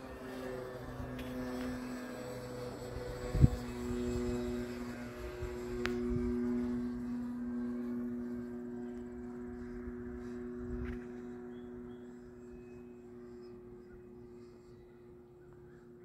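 E-flite Carbon-Z Cub RC plane's electric motor and propeller droning steadily in flight, the pitch shifting slightly now and then. A sharp thump comes about three and a half seconds in, and the drone fades over the last few seconds.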